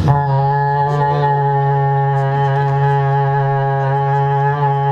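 A man imitating a large ship's horn with his voice into a microphone over a PA: one long, steady, low hooting tone held without a break.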